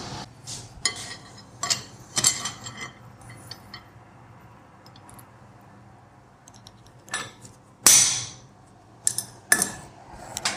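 Irregular metallic clinks and knocks as iron stock, tongs and a hammer are handled against a steel anvil, not a steady run of hammer blows. The loudest clank comes about eight seconds in, with two more sharp clinks near the end.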